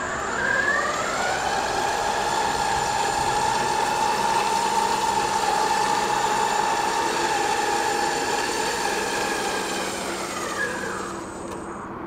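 Drive motors of a tracked remote-control aircraft tug whining as they speed up, running at a steady pitch while moving a jet by its nose wheel, then winding down with a falling whine near the end.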